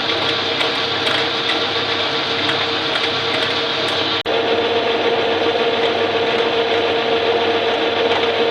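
Electric power tool running steadily with a constant whine over a dense rasping, grinding noise, briefly cut off about four seconds in before it carries on.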